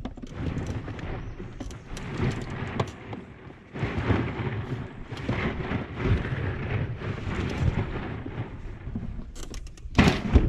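Wind rumbling and buffeting on the microphone, with knocks and thumps as a cooler is turned around and opened in a small metal jon boat; the loudest knocks come about ten seconds in.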